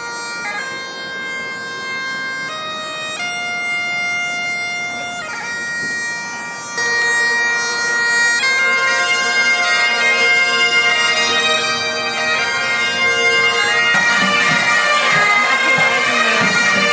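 Great Highland bagpipes playing a slow tune over a steady drone. The sound grows louder about seven seconds in and becomes fuller and denser near the end.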